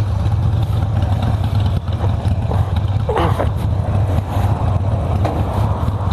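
Harley-Davidson V-twin motorcycle engine running steadily with a deep, even rumble.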